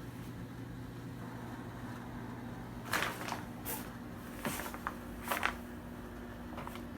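Electric fireplace insert's simulated fire-crackling sound effect: a few scattered sharp crackles and pops about three to five and a half seconds in, over a steady low hum.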